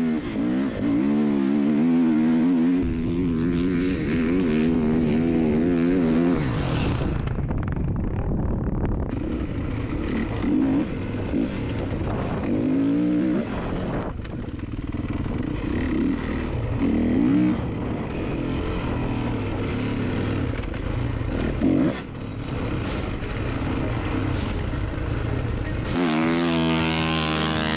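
Kawasaki KX450F's single-cylinder four-stroke engine running under the rider on a dirt trail, its revs rising and falling with the throttle.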